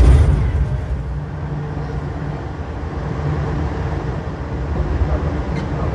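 Low, steady rumble of a moving vehicle, loudest at the start and easing off within about a second before running on evenly.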